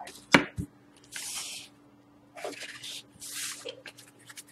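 Trading-card pack wrappers and cards being handled and cleared away: a sharp click, then several short rustling swishes, over a faint steady electrical hum.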